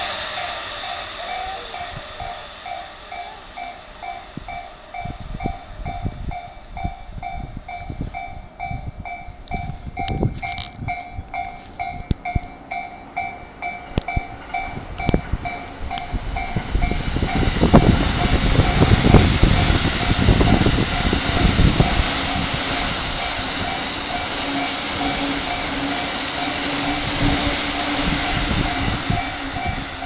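A level-crossing warning bell rings in a steady repeating pattern while electric commuter trains pass. An E233 series train fades away over the first few seconds. Then an E235 series train rumbles past, loudest about 17 to 22 seconds in, and its noise settles into a steadier run with a low hum.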